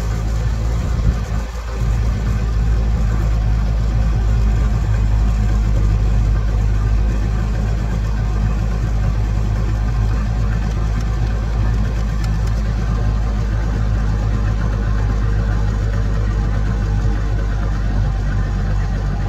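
1983 Evinrude 70 hp two-stroke outboard motor running steadily with the boat under way, with a brief dip in level about a second and a half in.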